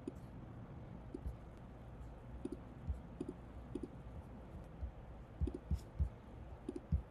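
Irregular clicks of a computer mouse, several coming in quick pairs, over faint steady background noise.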